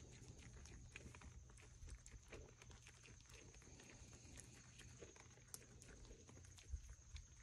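Near silence: faint, scattered clicks of a deer chewing corn kernels, over a steady high-pitched hum.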